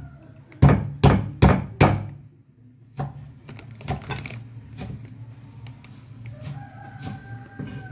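Kitchen knife chopping on a cutting board: four heavy chops roughly 0.4 s apart in the first two seconds, then, after a short pause, lighter and sparser knocks.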